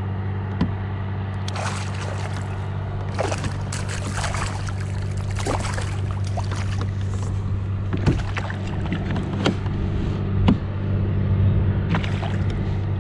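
A steady low hum runs throughout, with scattered short knocks and water splashes as a hooked largemouth bass is fought to the side of a kayak.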